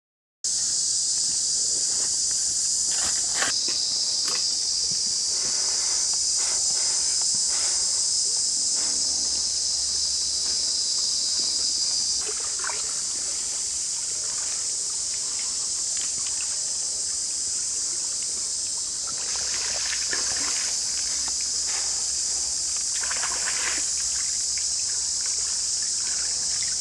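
A steady, high-pitched insect chorus, with scattered rustles and light taps from hands sorting crickets in a woven bamboo basket.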